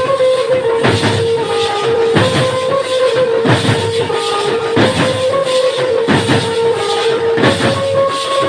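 Loud music with a steady drum beat under a held, shifting melody line.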